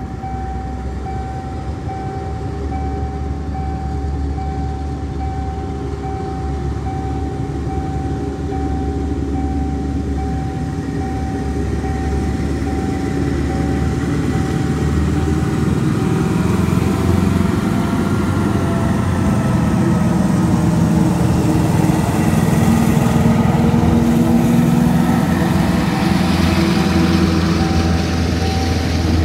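Level-crossing warning signal sounding a steady, evenly pulsing tone as a diesel-hauled passenger train approaches, its engine rumble growing steadily louder. Near the end the train's carriages run over the crossing with a loud rushing rattle of wheels on rail.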